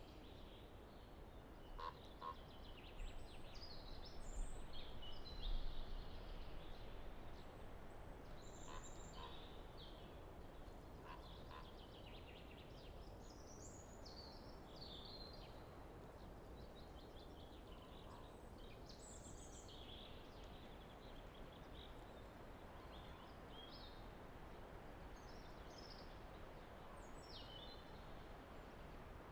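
Common chaffinch singing its short descending song phrase again and again, a few seconds apart, over a low rumble of light wind in the trees that swells briefly about four to six seconds in.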